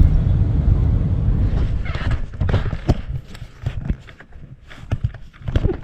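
A heavy low rumble for the first second or two, then irregular footsteps and knocks.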